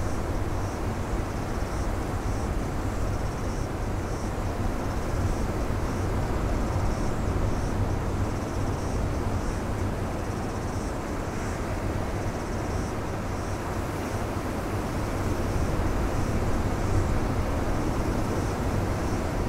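Ocean surf breaking on a rocky beach: a steady rush of waves and white water, swelling a little about a third of the way in and again near the end as bigger breakers come in.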